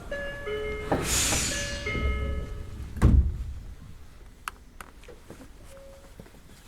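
Tokyo Metro 05 series train doors closing: the car's door chime sounds twice over a short hiss of air from the door engines, then the doors shut with a loud thud about three seconds in. A few faint clicks follow.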